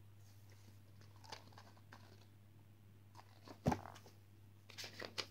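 Quiet handling of a hardcover picture book, with soft rustles and small clicks, a single sharp thump about three and a half seconds in and a few quick clicks near the end, over a steady low hum.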